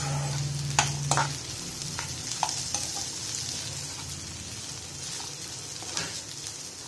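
Diced potato, onion and green chilli sizzling in hot oil in a frying pan while a metal spoon stirs them, scraping and knocking against the pan several times. A low hum fades out in the first second and a half.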